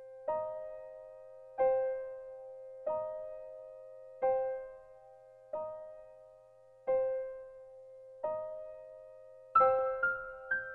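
Slow, gentle piano music: single notes struck a little over a second apart, each left to ring and fade, with quicker notes coming in near the end.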